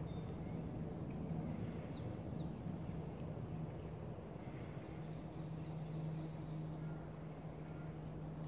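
Outdoor background: a steady low hum and rumble, with a few faint, thin, high chirps of distant small birds now and then.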